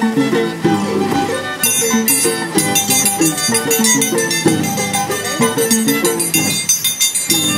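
Violin and Andean harp playing traditional Andean scissors-dance music.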